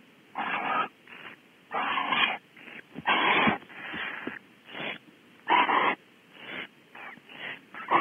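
Barn owls giving rasping hiss calls: about a dozen harsh, noisy bursts, each a fraction of a second long, louder and softer ones mixed at an irregular pace.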